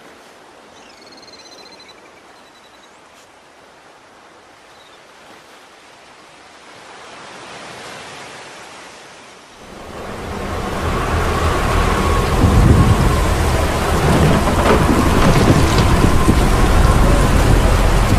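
Quiet wind and water noise with a few faint chirps near the start. About ten seconds in, a loud thunderstorm comes in suddenly: heavy rain and rumbling thunder, with a steady high tone running through it.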